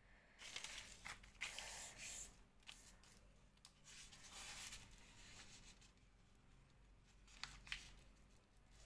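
Faint rustling and sliding of a sheet of paper as it is folded into a triangle and the crease is pressed flat by hand, with two sharp little ticks near the end.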